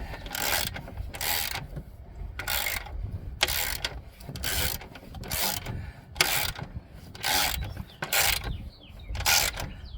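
Hand socket ratchet clicking in repeated strokes, about one a second, as the mower's engine mounting bolts are run down and snugged into the aluminium deck.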